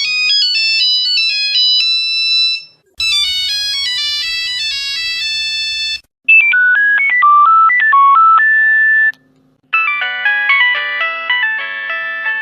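Nokia mobile phone ringtones played one after another: four short melodic tunes, each with a different timbre, separated by brief pauses.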